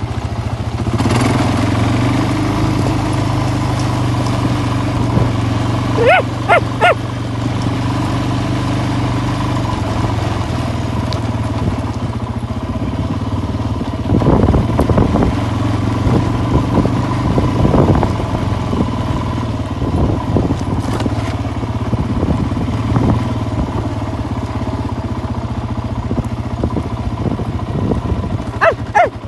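A motor vehicle's engine running steadily while driving over a rough dirt track, with knocks and rattles from the bumps in the middle. Two sets of three short pitched calls that rise and fall are heard, about six seconds in and again near the end.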